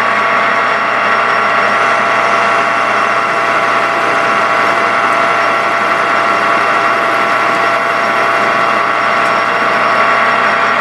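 Small metal lathe running steadily, with a whine of several steady tones, while a parting tool cuts off a turned metal piston.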